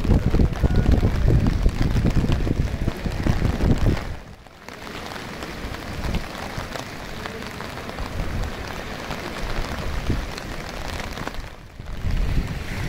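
Steady rain falling on wet paving and sand, with small waves breaking on the shore. Wind buffets the microphone heavily for the first few seconds and again near the end.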